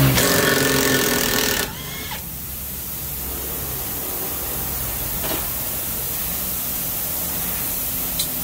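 Handheld power tool whirring at the front suspension, stopping abruptly about a second and a half in. A couple of faint clicks follow later.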